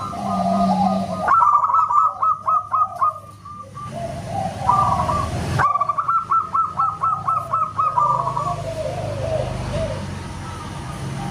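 Zebra dove (perkutut) song: two runs of quick, clipped whistled coos repeated several times a second, over a lower, softer cooing.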